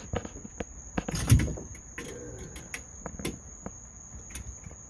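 Scattered clicks and light knocks of small tools and hardware being handled while a ring terminal is fitted to a tachometer, over a steady high trill of crickets.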